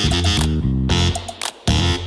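Upbeat retro funk track with a bass line, guitar and a beat, played back through an in-ear monitor for a sound demo, with a brief drop-out about a second and a half in.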